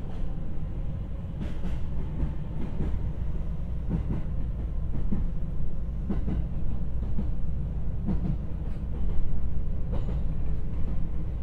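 Inside a JR West 225 series electric train running on the line: a steady low rumble of the car in motion, with the wheels clacking on the track about every two seconds.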